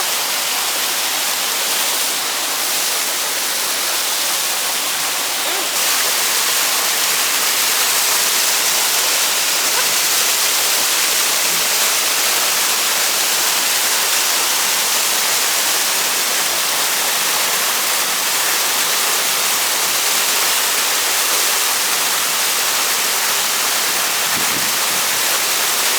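Waterfall splashing with a steady, even rush of falling water, close by; it grows a little louder about six seconds in.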